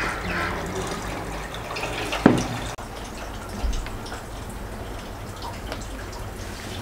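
Broth being spooned with a metal slotted spoon over a large kufta in a pot of simmering broth: liquid trickling and dripping back into the pot, with one sharp click about two seconds in.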